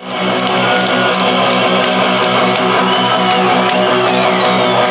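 Punk rock band playing live, led by strummed electric guitars.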